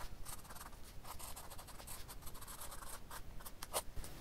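Pen writing on a grid-paper notebook page: a faint run of short, irregular scratching strokes as block letters are written.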